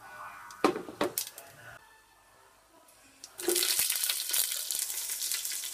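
Slit green chillies and whole spices going into hot ghee in a large aluminium pot: a few sharp clicks in the first second or so, then from about three and a half seconds in, the ghee sizzling steadily with fine crackles.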